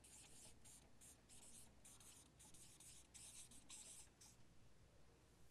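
Marker pen writing on a paper flip-chart pad: a quick run of faint, short strokes that stops about four seconds in.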